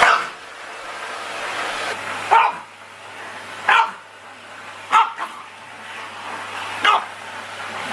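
A small dog barks four short times, a second or more apart, at a vacuum cleaner hose held toward it, with a faint steady hum underneath.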